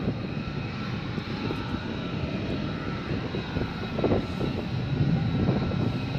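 Two F-35A Lightning II fighters' Pratt & Whitney F135 turbofan jet engines running at taxi power, a steady low rumble with a faint high whine over it.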